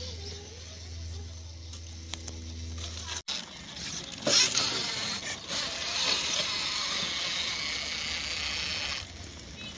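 Radio-controlled rock crawlers working over granite: a low steady hum with a faint motor whine, then, after an abrupt cut about three seconds in, a rough hiss of tyres and chassis scrabbling on rock, with a sharp knock a second later, stopping abruptly near the end.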